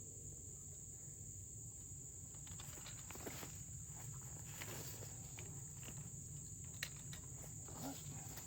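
Steady high-pitched insect chorus in the pasture, with scattered faint clicks and rustles of hands working fence wire.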